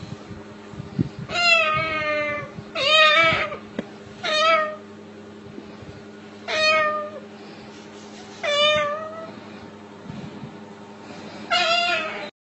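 Six drawn-out meows with a wavering pitch, spaced one to three seconds apart.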